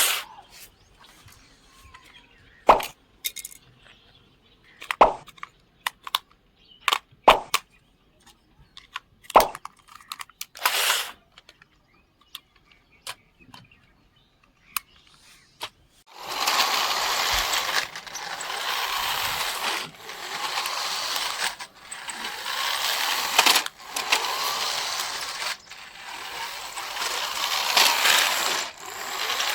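Scattered clicks and knocks of small plastic toy parts and packaging being handled. About halfway in, a toy RC car's small electric motor and wheels start whirring in spells of a couple of seconds each, with short breaks between them.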